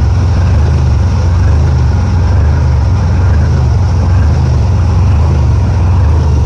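Isotta Fraschini turbocharged diesel W18 engine of a torpedo boat running steadily under way: a deep, even drone, with water rushing and spraying along the hull.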